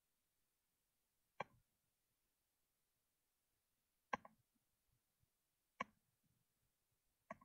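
Near silence broken by four single short, sharp clicks, spaced about one and a half to two and a half seconds apart.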